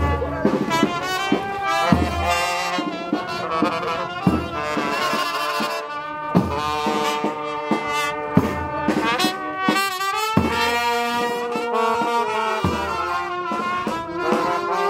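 Funeral brass band playing a slow march: trumpets and trombones carry the melody over a deep low beat about every two seconds.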